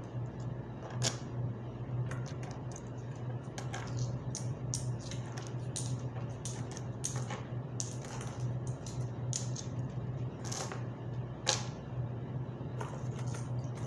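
Coins clicking and clinking irregularly on a tabletop as they are sorted and stacked by hand, over a steady low hum.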